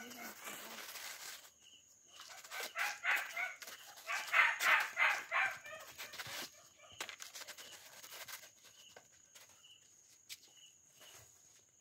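Fowl calling: two runs of repeated calls, about two and four seconds in, the second run louder.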